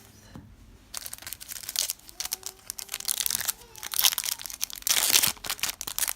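Yu-Gi-Oh booster pack wrapper crinkling and tearing as it is opened. A dense, uneven crackle starts about a second in.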